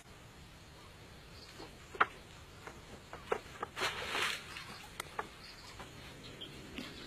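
Water splashing and streaming off as a catch is hauled up out of the river, the loudest sound, about halfway through. A few sharp knocks come before and after it, over a faint steady insect hum.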